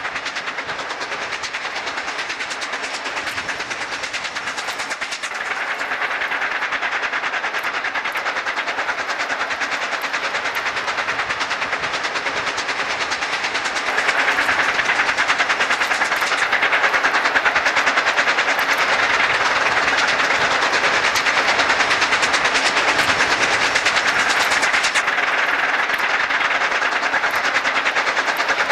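Steam locomotive working hard upgrade: a fast, steady run of exhaust beats over train running noise, stepping up in loudness about halfway through.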